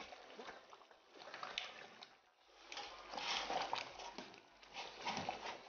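Faint wet squishing and light clicks as handfuls of chopped leafy greens (aleho) are dropped into a pot of thin groundnut soup.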